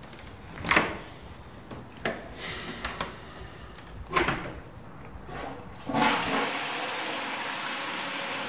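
A few short knocks, then from about six seconds in a steady rushing of water: a toilet flushing.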